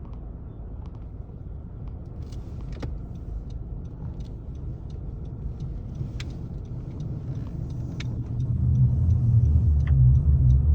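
Car driving on a snow-covered road: a steady low rumble of engine and tyres with scattered light clicks. The rumble grows markedly louder about eight seconds in.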